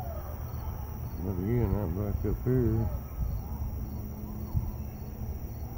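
Insects chirping in a night-time chorus over a steady low rumble. About a second in, a distant wavering pitched sound rises above them for a second or two.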